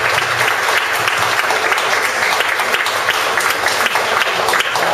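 Audience applauding steadily: many hands clapping at once at the end of a performance.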